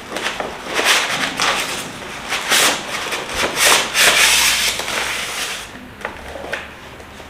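Rustling, scraping and crinkling of packaging being handled as a toy JCB excavator is unboxed, in irregular bursts with a few sharp clicks, dying down near the end.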